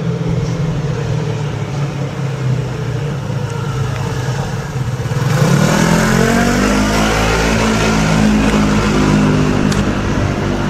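A motor vehicle's engine running low and steady, then revving up from about five seconds in and holding a higher, louder note.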